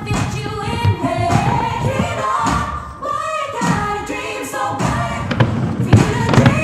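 A song with several voices singing over music, with occasional thuds.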